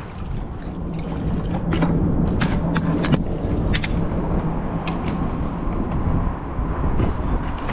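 Wind buffeting the microphone over water lapping around a kayak. A steady low hum runs from about a second in until past six seconds, and a handful of sharp clicks come in the middle while a hooked fish is played on a spinning rod.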